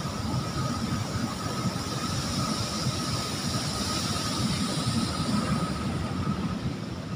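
Ocean surf breaking on a beach: a steady rushing with a low rumble.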